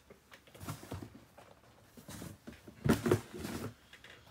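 Handling noise of shoes being moved around: a few short rustles and soft knocks, the loudest about three seconds in.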